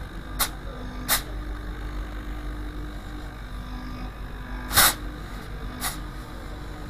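Split AC rotary compressor running with a steady low hum while it is tested for back-leakage after an oil top-up, with four short sharp spurts of air from its open pipe, the loudest about five seconds in.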